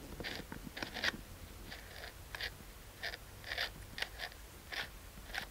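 Rewind knob of a Leica III being turned by hand, rewinding the film into its cartridge: a run of short scratchy clicks, a few per second and unevenly spaced.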